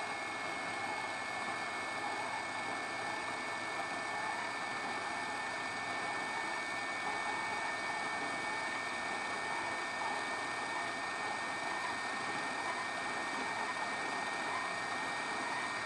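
WEP 858D hot-air rework station blowing: a steady rush of air from its blower with a steady high two-note whine. The nozzle is heating a surface-mount chip to reflow its solder.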